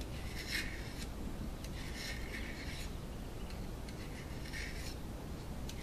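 Utility knife blade scraping along the cut edge of a ring of 4 in ABS pipe, deburring it: a few short scraping strokes with pauses between them.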